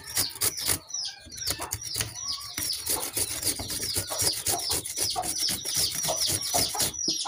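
Radish being grated on a stainless steel grater: quick, even rasping strokes, each with a short squeaky scrape, about three a second.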